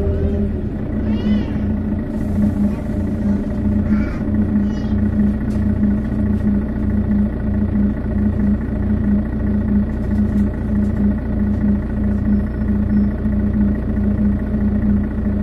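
Setra S415 NF city bus's diesel engine idling steadily. A few short, high, wavering chirps cut through about a second in and again around four seconds in.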